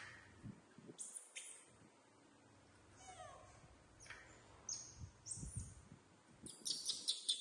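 Young macaques giving high-pitched squeaks and chirps: single calls at first, one falling in pitch, then a quick run of short squeaks near the end. A few soft low thuds come in between.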